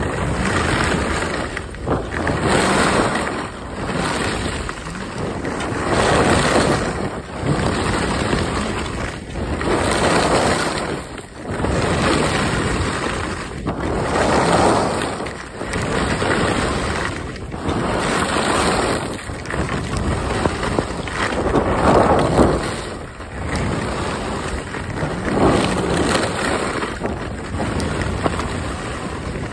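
Skis sliding and carving on snow, the hiss swelling and fading with each turn about every two to three seconds. Wind rushes over the phone's microphone throughout.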